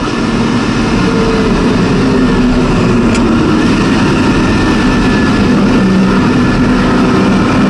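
Porsche 914/6 GT's air-cooled flat-six engine heard from inside the cockpit, running steadily at moderate revs while it is still warming up. A brief tick comes about three seconds in.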